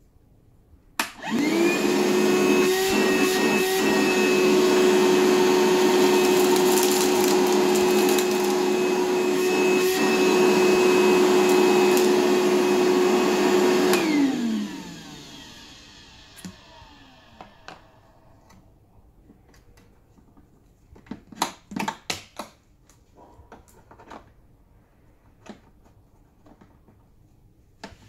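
DeWalt DCV580N cordless wet/dry vacuum switched on about a second in, its motor running at a steady pitch with a high whine. It is switched off about halfway through, the motor winding down in pitch over a couple of seconds. A few light knocks and clicks follow.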